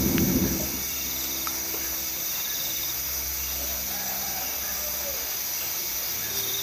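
A short rush of breath blown into a wood cooking fire to liven it, ending under a second in. Then a steady chorus of night insects chirping, with a few faint ticks.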